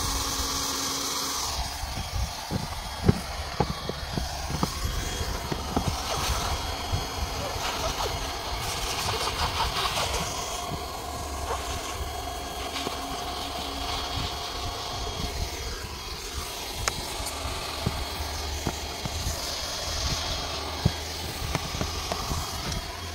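Handheld hot-air plastic welding gun running steadily, its blower giving a continuous whooshing hiss with a low hum, while the softened geomembrane is worked down with a hand roller. Scattered light clicks and crackles come from the plastic sheet, most of them in the first few seconds.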